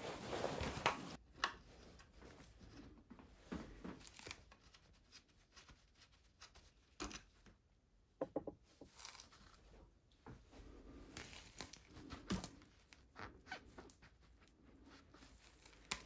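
Faint, scattered clicks and rustles of hand work at a hydraulic disc brake caliper: an 8 mm spanner undoing the brake hose's nut and the hose being worked free over a cloth rag.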